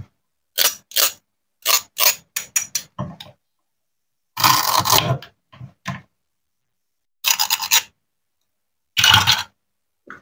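Toy plastic knife pulling apart the Velcro-joined halves of plastic play fruits and vegetables on a wooden cutting board. It makes short scratchy rips: a quick run of them in the first three seconds, a longer rip about four and a half seconds in, and more at about seven and a half and nine seconds.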